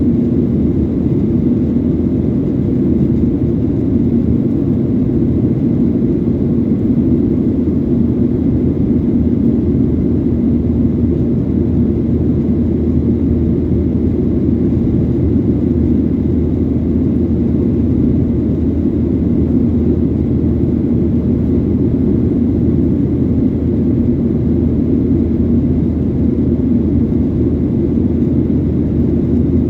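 Airliner cabin noise: a steady, unchanging low drone of the jet engines and rushing air, with a constant hum running through it.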